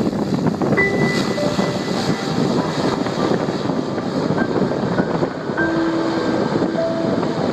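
Twin-engine turboprop airplane at takeoff power, a steady noisy roar of engines and propellers as it rolls down the runway and lifts off.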